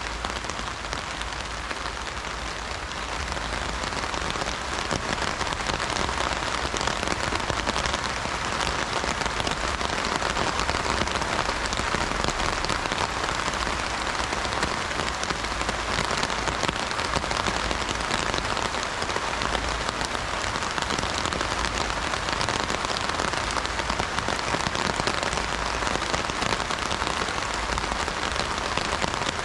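Heavy rain falling on an umbrella: a dense, steady patter of drops, growing a little heavier about four seconds in.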